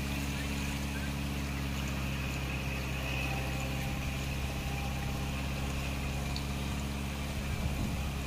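Kubota MU4501 tractor's four-cylinder diesel engine running steadily under load, driving a rotavator through wet mud, heard as an even low drone.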